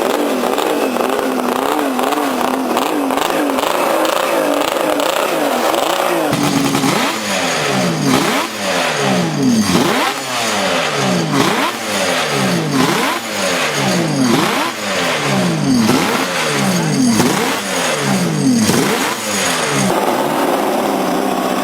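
Kawasaki KR750's three-cylinder two-stroke racing engine. For the first few seconds its pitch wavers quickly up and down, then it revs up and drops back over and over, about every second and a half.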